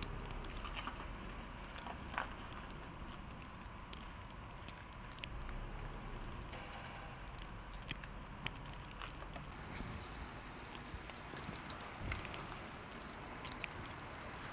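Outdoor depot ambience in falling snow: a steady low rumble and hiss with a faint steady hum, and scattered light clicks and taps.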